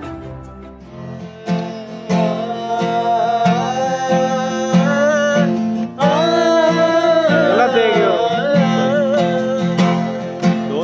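Acoustic guitar strummed, with a man singing a song over it in a wavering voice. They come in about a second and a half in, as a fading music track dies away.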